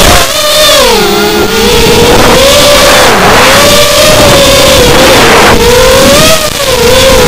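FPV racing quadcopter's motors and propellers whining, loud and close to the onboard camera's microphone. The pitch rises and falls continually with the throttle.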